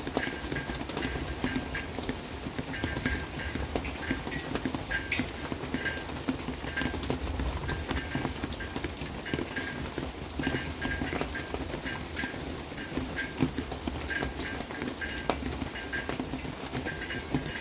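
Rain dripping and pattering, with irregular knocks of drops hitting a hard surface.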